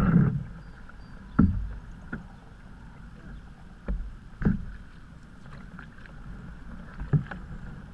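A canoe being paddled: paddle strokes in the water over a steady hiss, with several sharp, dull knocks carried through the hull.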